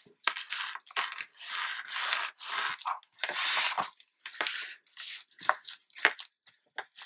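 A wadded paper towel rubbed and pressed over a glued paper cut-out on a card album cover, making irregular scuffing, crinkling strokes with brief pauses between them.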